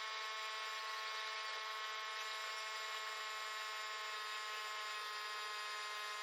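Steady electric buzz of a small motor, holding one unchanging pitch.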